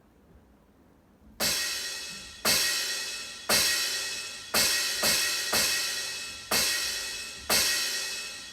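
Crash cymbal sound of an electronic drum kit struck eight times, about once a second with two quicker hits in the middle, each hit ringing out and fading before the next; it starts about a second and a half in.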